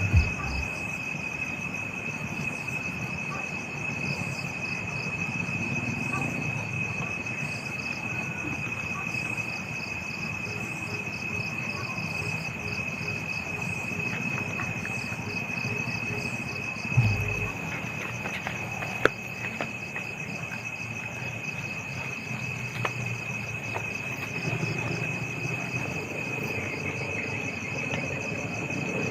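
Crickets and other insects calling steadily: one continuous high drone with rapid pulsing chirps above it. A dull thump comes about two-thirds of the way through, followed by a sharp click.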